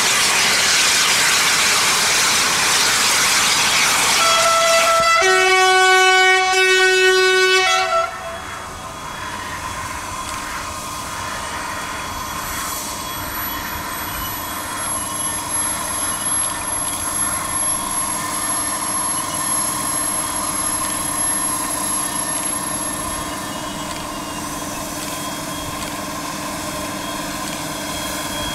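Train running with loud rail noise, then its horn sounds two notes about four seconds in: a short higher note followed by a lower note held for about two and a half seconds. After the horn stops, a quieter steady mechanical hum from the train continues.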